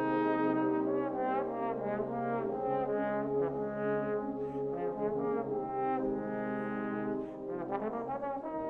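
Wind band playing a brass-heavy passage of a concerto for bass trombone and band, quick moving notes over held lower chords, with a brief drop in level about seven seconds in.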